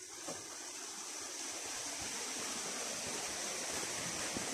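Rushing water of a mountain stream, a steady hiss that grows louder throughout.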